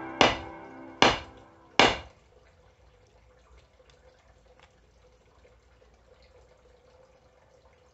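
Three sharp knocks about 0.8 s apart as the rehandled axe is rapped down to seat its head, over the last fading notes of background music. After about two seconds only faint room noise with a thin steady hum remains.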